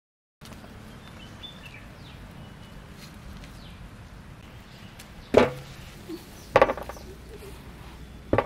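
Sharp knocks on a steel plate, three times in the second half, the middle one a quick cluster, as peeled boiled potatoes are set down on it. Faint bird chirps in the background.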